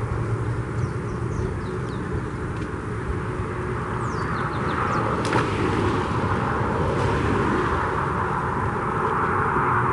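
Steady road traffic noise from a nearby highway, swelling toward the end as a vehicle passes, with a single short sharp click about five seconds in.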